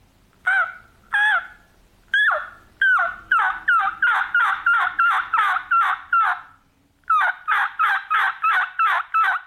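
A diaphragm turkey mouth call blown to imitate a hen: two single clear calls, then two quick runs of yelps, about three a second, with a short pause between the runs. Each yelp starts on a clear high front note and drops into a lower, raspy back note.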